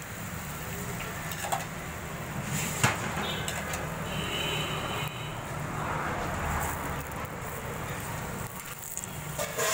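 Paratha frying on a flat iron griddle (tawa): oil sizzling and a metal spatula clicking and scraping on the griddle, with a sharp knock about three seconds in, over a steady low hum.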